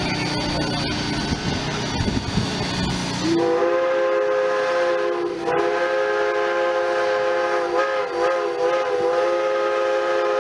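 Steam locomotive 2141's multi-note steam whistle sounds twice, starting about three seconds in: a short blast, a brief break, then a long blast that wavers slightly near the end.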